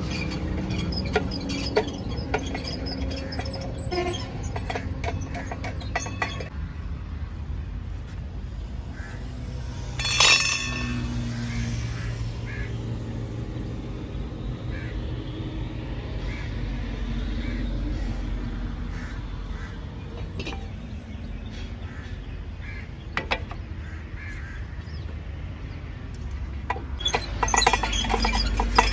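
The clear plastic pre-cleaner dust bowl of a JCB 3DX backhoe's air intake being handled: scattered clicks and knocks as it is taken off and emptied, and a clatter near the end as it is fitted back, over a steady low rumble.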